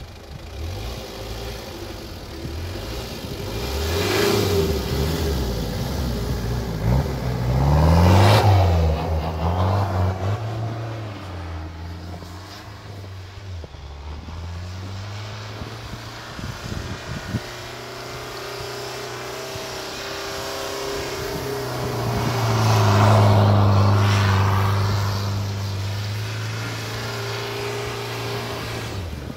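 Mitsubishi Pajero engine revving up and down while driving off-road, its pitch climbing and dropping repeatedly. It is loudest about eight and twenty-three seconds in, as if passing close.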